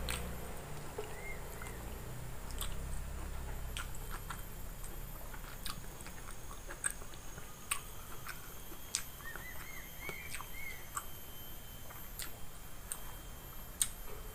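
Close-up chewing of a person eating rice and jengkol stew by hand, with scattered soft clicks.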